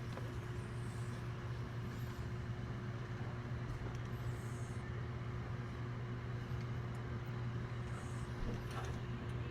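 A steady, low mechanical hum from a running motor or engine, unchanging throughout.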